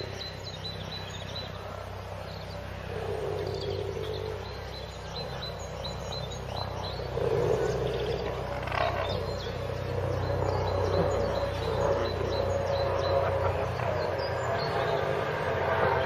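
Tigers growling during mating: low, drawn-out growls a few seconds apart, louder and more frequent from about halfway. Small birds chirp faintly throughout.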